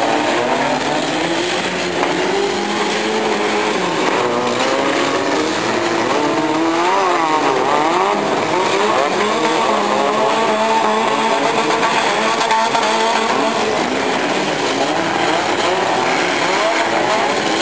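Several demolition derby cars' engines revving hard at once, their pitches climbing and falling over each other as the cars push and ram in the pack.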